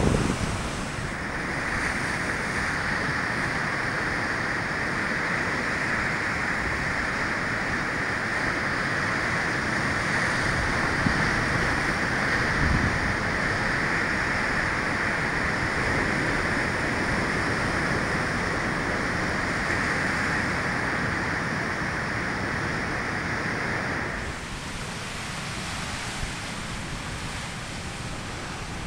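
Rough sea surf breaking and washing over rocks, a steady roar of water with wind on the microphone; near the end the roar drops a little and changes character.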